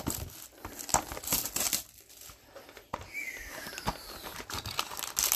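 A cardboard trading-card box being pried open and its foil-wrapped pack handled: scratchy rustling and crinkling of cardboard and foil, with sharp clicks and a short falling squeak about three seconds in.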